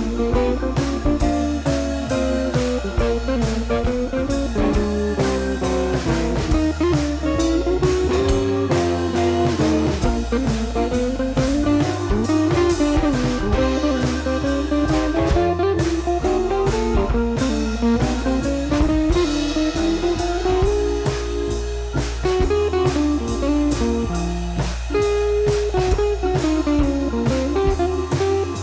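Background music: a blues-style tune with guitar over a steady drum-kit beat.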